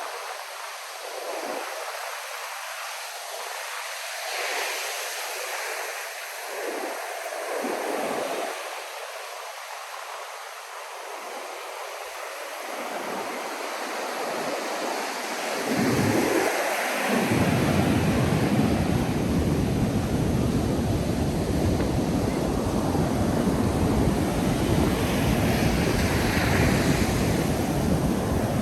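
Ocean surf breaking and washing up a sandy beach, with waves swelling every few seconds. About halfway through, wind on the microphone adds a low rumble and the whole gets louder.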